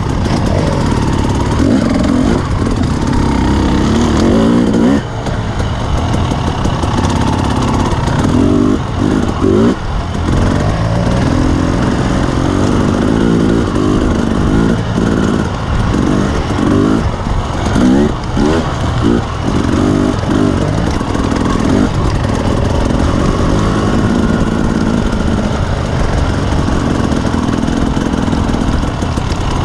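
Dirt bike engine working up and down the rev range on a rough trail, with the throttle opened and closed over and over and several short cuts where the revs drop.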